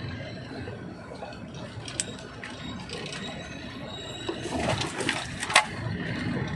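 Scattered mechanical clicks and rattles over a low steady hum, with a sharp click about two seconds in and a louder one near the end.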